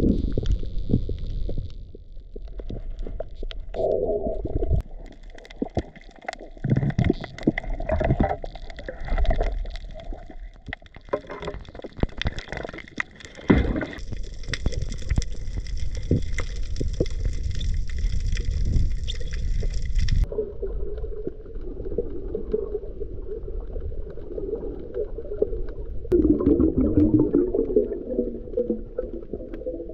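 Muffled underwater sound picked up by a submerged camera: a low water rumble and gurgling with scattered clicks and knocks. A hissy upper layer stops abruptly about two-thirds of the way through.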